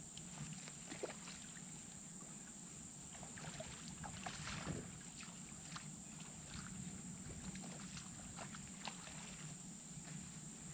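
Faint sloshing and splashing of shallow water as a person wades through it, in irregular short strokes, over a steady high trill of crickets.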